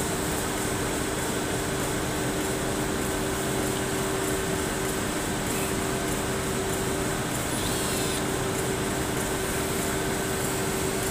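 Steady hum of factory machinery, with a low held tone under an even whoosh; no distinct drill bursts stand out.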